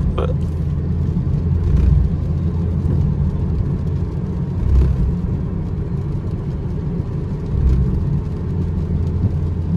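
Steady low road and engine rumble heard inside a small car cruising on a rain-wet highway, with a few brief low swells.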